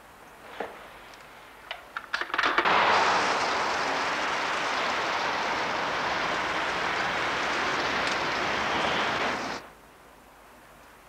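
A few light clicks, then heavy rain coming down steadily for about seven seconds, starting and stopping abruptly.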